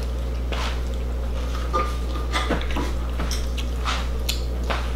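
Close-up eating sounds of children chewing and handling fast food: scattered small smacks and clicks over a steady low electrical hum. A brief faint whine comes about two seconds in.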